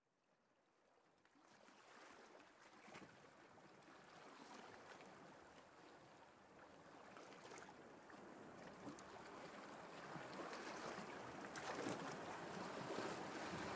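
Sea waves washing and wind, fading in gradually from near silence and growing steadily louder.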